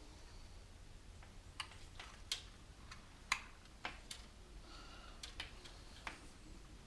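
Scattered light clicks and taps, about eight of them at uneven intervals, from small computer parts and fittings being handled during PC assembly.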